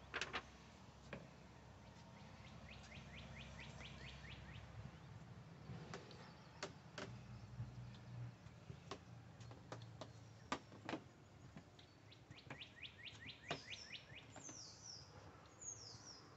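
Faint songbird calls: a quick trill of about ten notes, repeated about ten seconds later, then a few short falling whistles near the end. A few soft clicks and a low steady rumble sit underneath.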